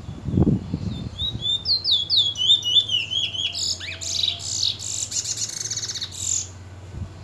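A caged bullfinch singing its 'tee chor wheet' song: a run of slurred, downward-sweeping whistled notes that quickens into a rapid, buzzy trill and stops about a second before the end. A few low knocks come in the first second.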